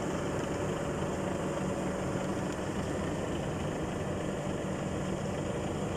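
Car engine idling steadily, with a low even drone and no crunching or impacts heard.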